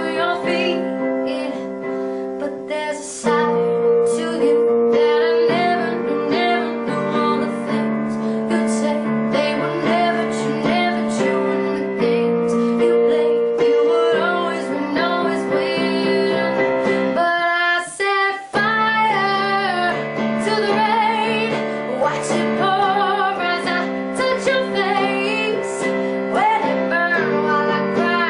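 A pop song with a female singer over piano, playing as background music; it drops out briefly about two-thirds of the way through.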